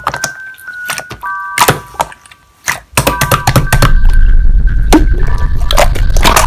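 Slime being pressed and poked, making a run of sharp clicks and pops over a background tune of held high notes. About three seconds in, a loud, steady low rumble comes in under the clicking.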